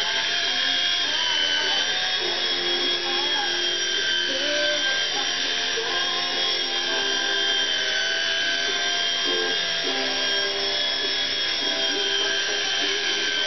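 Xieda 9958 micro RC helicopter's electric motors and rotor blades whining steadily in flight, the pitch sagging and rising a little as the throttle changes.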